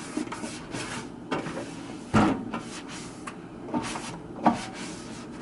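Cloth wiping the inside walls of a microwave oven, an uneven rubbing with a few knocks against the cavity, the loudest about two seconds in.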